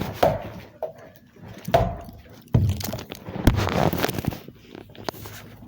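A handful of irregular thumps and rustles, the loudest about two and a half and three and a half seconds in.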